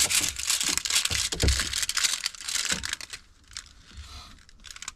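Pipe-wrap tape crinkling and crackling as it is pulled snug and wound around buried water-line connectors, with dull bumps from handling. It dies down about three seconds in.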